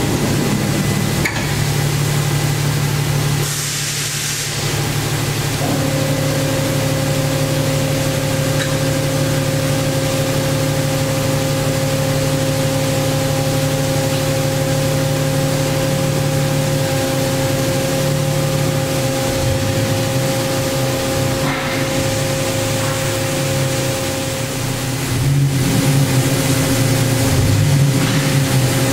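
Daewoo Puma 2000SY CNC turning center idling under power: a steady hum with several steady tones. About a second in there is a click, then the sliding guard door is pushed open over a couple of seconds, and another steady tone joins the hum soon after.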